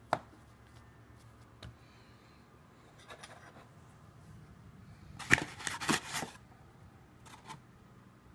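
Hands kneading soft homemade play-dough on a counter: faint squishing and handling sounds, with a quick cluster of sharp knocks and slaps about five seconds in.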